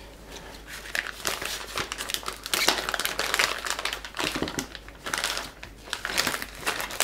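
Clear plastic vacuum-sealer bag crinkling in irregular bursts as it is handled and white asparagus spears are pushed into it.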